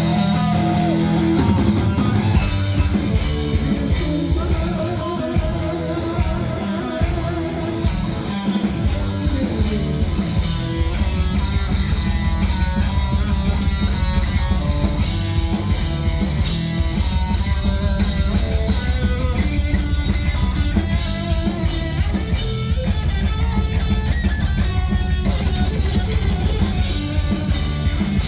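Heavy metal band playing loud and live: distorted electric guitars, bass and a drum kit, the drumming settling into a fast, steady pulse about eleven seconds in.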